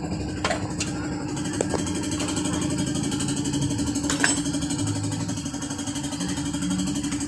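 An engine idling steadily, with a few light clicks near the start and about four seconds in.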